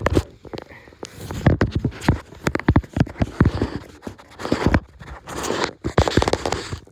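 Tire-changing tools knocking and scraping against a tire and wheel while the tire bead is pried down, with many irregular knocks.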